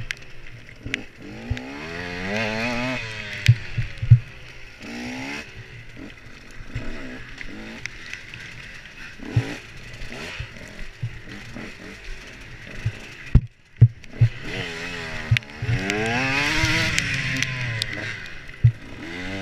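Enduro motorcycle engine revving up and down over and over as the rider works the throttle through a tight obstacle section. Sharp knocks and clatter from the bike over rough ground come throughout, and the engine note briefly drops away about two thirds of the way through.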